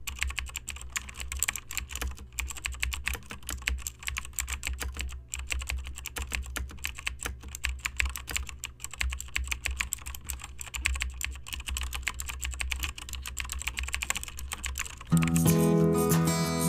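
Laptop keyboard typing: rapid, irregular key clicks over a low steady hum. Near the end, acoustic guitar music comes in.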